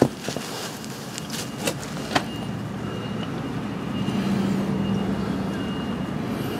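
Warm engine oil streaming from the drain hole into a drain bucket: a steady splashing. There is a sharp knock right at the start, a few lighter clicks in the first two seconds, and a low hum that swells about four seconds in.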